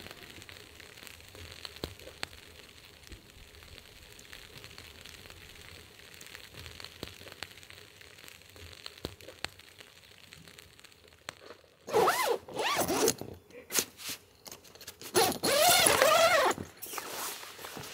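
Zipper on a Gazelle T3X pop-up tent's door being pulled in two long zips, about twelve and fifteen seconds in, after a stretch of faint steady hiss.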